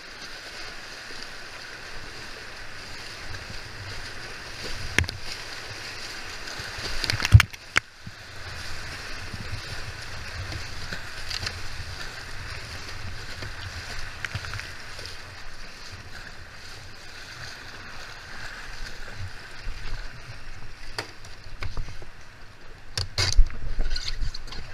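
Whitewater rapids rushing steadily around a kayak, with paddle splashes and sharp knocks of the boat and paddle, the loudest about seven seconds in and a cluster near the end.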